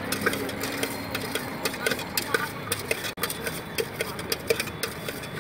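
Cut guava pieces being tossed and mixed by hand in a steel bowl, giving many irregular light clicks and clatters against the metal.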